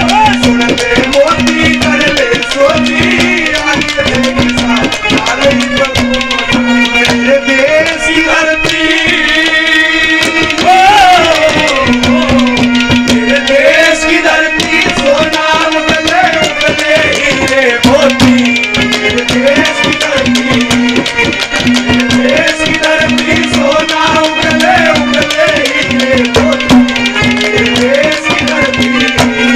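Instrumental interlude of Haryanvi folk (ragni) music: a dholak hand drum plays a busy rhythm under a wavering, gliding melody line and a low note repeated in a pulsing pattern.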